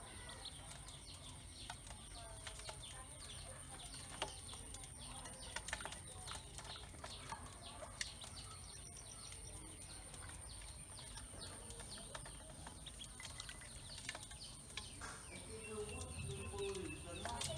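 Ducklings feeding in an aluminium basin: a rapid, irregular patter of small bill taps and clicks on the metal and feed, with faint peeping that picks up near the end. A steady high-pitched whine runs behind it.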